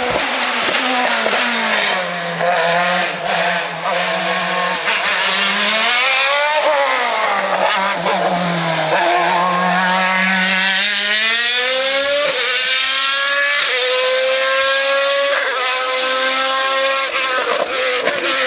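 A hill-climb race car's engine running hard past the spectators, its pitch dipping and climbing through a corner, then rising in steps through several gear changes as it accelerates away.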